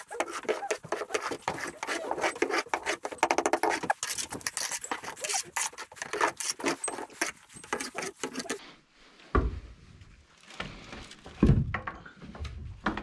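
A stiff broom sweeping dung and straw along a concrete barn floor in quick, repeated strokes. About two thirds of the way in, this gives way to a few low, dull knocks of tools being handled.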